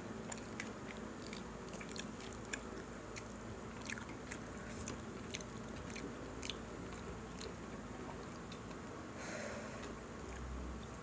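Crispy pata being torn apart by hand and chewed close to the microphone: faint, scattered crackles and clicks from the brittle fried pork skin, with mouth sounds of chewing and a brief rustle near the end.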